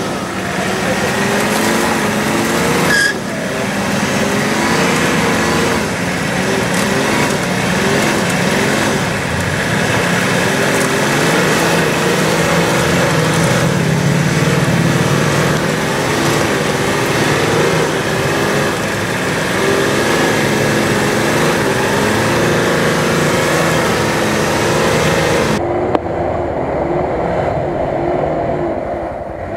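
Nissan Patrol off-roader's engine running and revving up and down under load as it works in deep forest mud. Near the end the sound abruptly turns duller, the engine still running.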